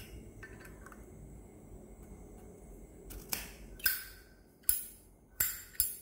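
A Zippo windproof lighter handled in the hand: about five sharp metallic clinks, each with a brief bright ring, starting about three seconds in, typical of the hinged brass lid being flipped open and snapped shut.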